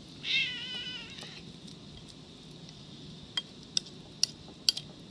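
A cat meows once, a wavering call a little over a second long. Then come several light, sharp clinks, about six in the last two seconds, as the wet cat food is worked out of the can into the dish.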